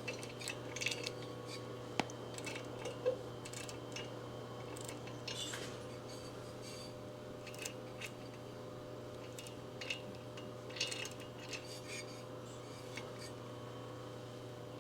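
Light, scattered metal clicks and scrapes of hand tools working a thread insert into a stud hole in a motorcycle cylinder, over a steady low hum.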